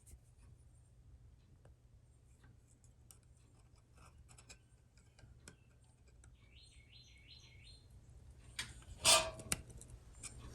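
Faint ticks and scrapes of a pick on small metal parts of a jukebox mechanism, then a louder metallic clatter a little before the end.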